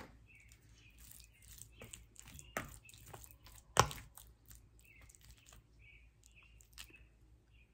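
Sporadic light clicks and knocks of tableware handled over a bowl of food, the sharpest knock nearly four seconds in and a smaller one just before three seconds.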